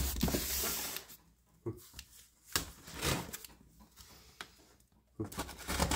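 Knife cutting the packing tape on a cardboard shipping box: a knock at the start, then irregular short scraping and rustling strokes, busier near the end.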